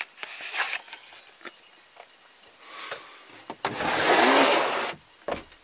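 Scattered knocks and rustles of someone moving about in a small yacht's wooden cabin, then a loud scraping noise lasting over a second, starting about three and a half seconds in.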